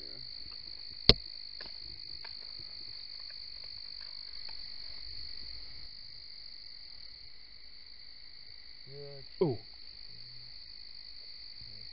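Steady night chorus of frogs and insects, a constant high trill. About a second in comes a single sharp click or knock, the loudest sound, and near the end a man's voice says 'ooh'.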